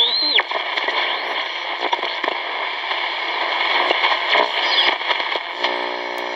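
Shortwave reception from the Hitachi Hi-Phonic WH-888R portable radio's speaker: steady static and hiss with a faint, distorted voice, and a whistle that glides up and falls away in the first half second. A steady buzz comes in near the end.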